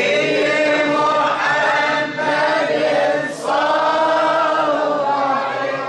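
Male voices chanting an Arabic Mawlid devotional chant in long, drawn-out melodic phrases, with brief breaks between the phrases.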